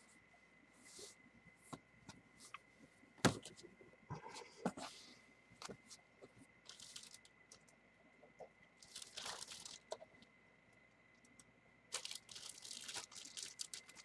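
Faint, intermittent rustling as a jersey and its box packaging are handled, with a sharp knock about three seconds in and denser rustling near the end.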